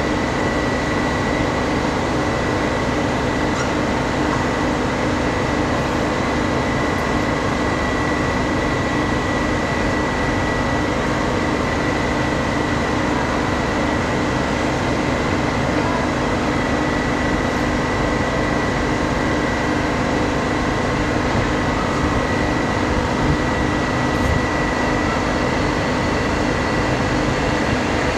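V/Line N class diesel-electric locomotives running, a steady drone with a thin, high whine over it.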